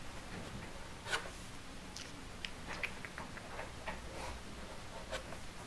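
Pen writing on paper laid on a table, signing and dating a form: faint, irregular scratches and light ticks.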